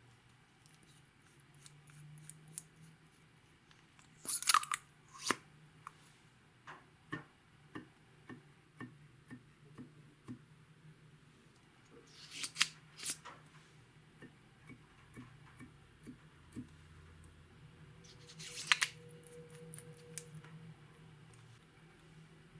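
Close-up handling sounds: scattered sharp clicks and snips, with three louder crisp bursts about four, twelve and nineteen seconds in.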